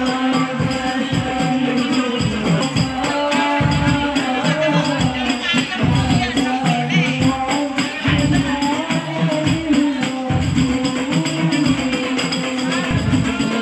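Live music: men singing together through microphones to a steady beat of hand drums and jingling frame drums.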